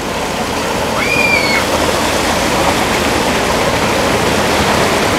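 Cars driving slowly through deep floodwater on a road, their tyres churning and splashing the water in a steady rush, with engines running underneath. About a second in, a brief high-pitched tone sounds for about half a second.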